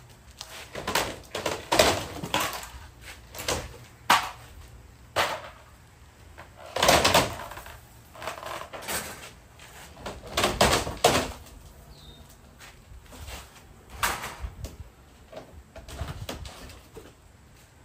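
Irregular wooden knocks, bangs and scrapes of demolition work, typical of siding boards being pried off and handled.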